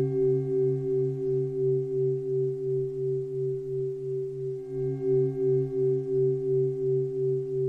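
Sustained meditation drone of several steady low tones that pulse evenly about two and a half times a second. Fainter higher tones above it fade out soon after the start and come back about four and a half seconds in.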